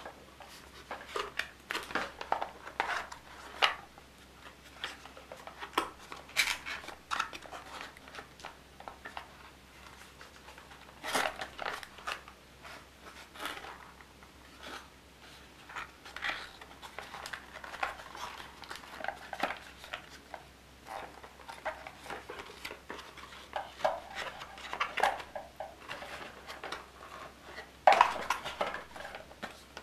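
Thin white cardboard box insert being handled and opened: irregular scrapes, taps and rustles of paperboard, with the loudest knock about two seconds before the end.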